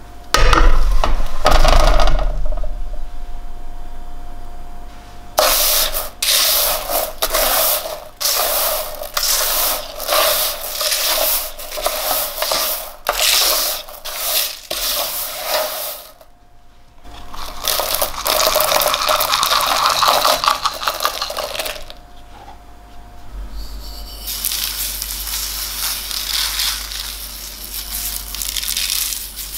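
A metal baking tray is pulled out over the oven rack with a loud clatter. Then a spatula scrapes and stirs crunchy oven-roasted red lentils and almonds across the parchment-lined tray in repeated strokes.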